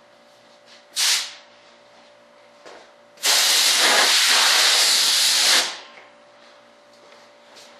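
Compressed-air blow gun blowing drilling crud out of a wing mold: a short blast about a second in, then a steady hiss of about two and a half seconds that cuts off sharply.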